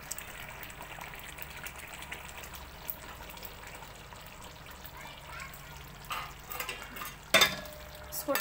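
Chicken curry gravy simmering in a pot over a medium-low flame, bubbling steadily. A sharp knock rings out about seven seconds in.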